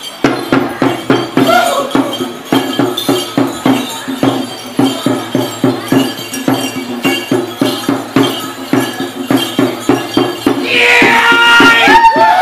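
Minahasan Kabasaran war-dance accompaniment: a drum beaten in a steady, fast rhythm, with a loud shout from the dancers near the end.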